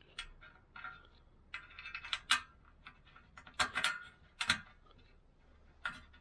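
Small metallic clicks and scraping as slot-nut inserts are handled and slid in an aluminium mounting rail, with a few sharper clicks around the middle.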